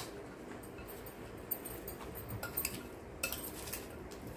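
A handful of light, separate clinks and taps of a metal spoon against a glass mixing bowl.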